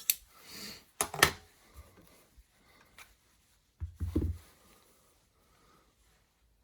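Handling of a small steel precision vise and measuring tool: a few sharp metal clicks and knocks, the loudest about a second in, then a duller knock about four seconds in.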